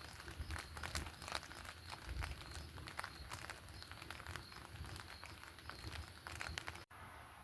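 Campfire burning, its wood giving off faint, irregular crackles and pops. The sound cuts off abruptly near the end.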